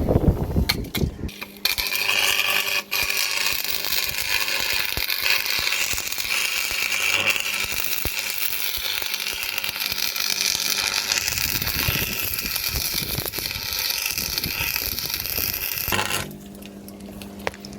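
Stick (arc) welder burning a rod: a steady crackling sizzle that starts just over a second in and cuts off sharply near the end. The rod is welding a car differential's gears solid to lock the diff.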